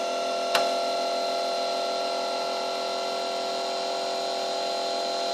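Zmorph 2.0 S 3D printer running with a steady whine made of several fixed tones, the hum of its motors and fans, with a single sharp click about half a second in.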